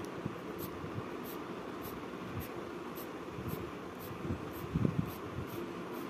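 Coloured pencil shading on paper over a steady fan-like hiss, with faint regular ticks about every half second and a few soft knocks a little before the end.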